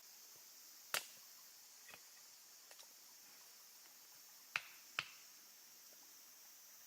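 A few sharp, isolated clicks or snaps over a faint steady hiss: one about a second in, a faint one shortly after, and two close together about half a second apart later on.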